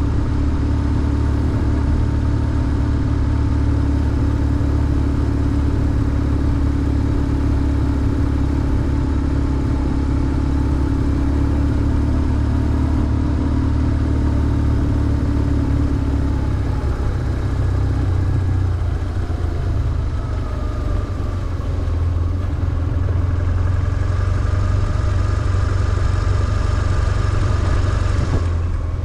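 BMW R1150GS flat-twin boxer engine running on the move, holding a steady note for roughly the first half, then dropping lower and changing pitch as the bike slows or shifts, with a rising tone in the later part.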